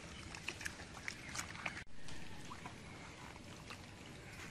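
Water splashing and sloshing in a plastic bucket as live catfish move and a hand works among them, in short sharp splashes. After a sudden cut about two seconds in, a faint, steady outdoor background.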